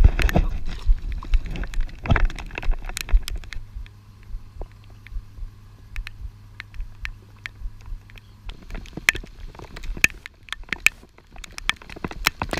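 Raindrops ticking irregularly on a GoPro's waterproof housing, with wind rumbling on the microphone for the first few seconds.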